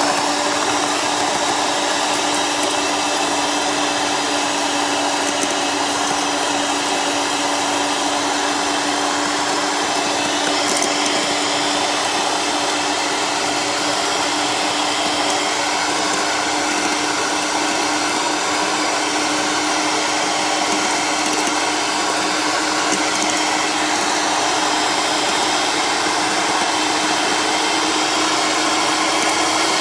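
Kenwood electric hand mixer running steadily at one speed, its beaters whipping egg whites in a stainless steel bowl: a steady motor whine over one held hum.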